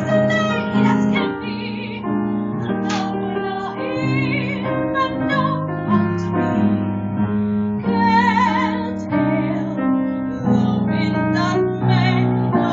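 A woman singing a slow song with vibrato over piano accompaniment.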